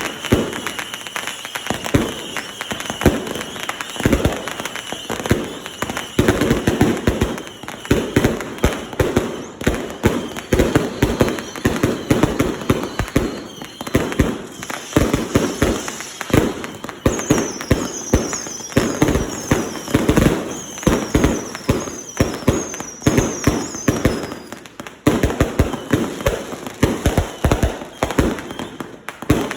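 Consumer fireworks going off in a dense, rapid string of bangs, several a second, without a break. Partway through comes a run of short, high whistles, each falling in pitch.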